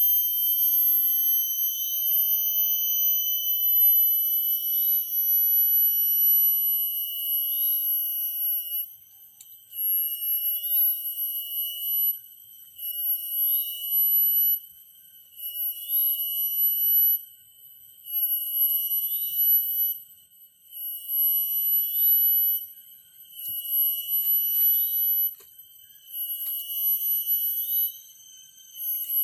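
Cicadas giving a loud, high, steady whine. About nine seconds in it breaks into a pulsing rhythm, cutting out briefly every two to three seconds, while a short rising chirp repeats about every second and a half.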